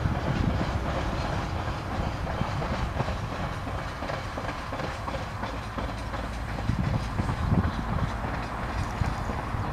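Freight wagons of a log train rolling past on the rails: a steady rumble with irregular wheel knocks.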